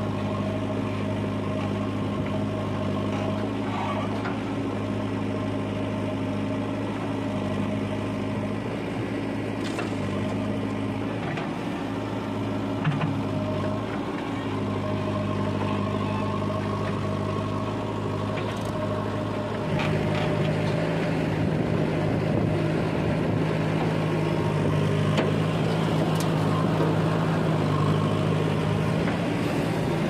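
Diesel engines of a JCB 3DX backhoe loader and a tractor running steadily while soil is loaded. About two-thirds of the way through, the engine sound grows louder and changes pitch. There is one short knock near the middle.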